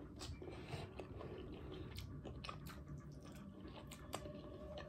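Quiet, close-up chewing of a chopped cheese sandwich, with soft wet mouth clicks scattered throughout.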